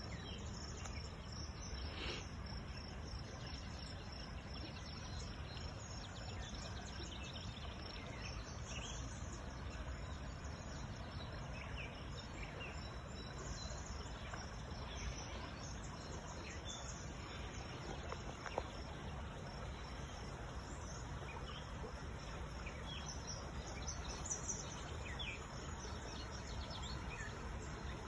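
Outdoor nature ambience: a steady high, pulsing insect trill like crickets, with scattered short bird chirps, over a low steady rumble.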